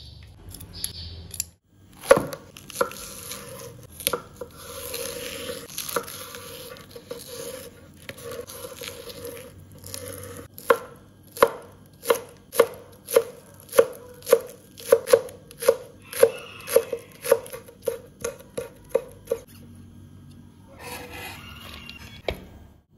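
Kitchen knife chopping spring onion on a wooden cutting board: sharp knocks, scattered at first, then a steady run of about two chops a second that stops a few seconds before the end.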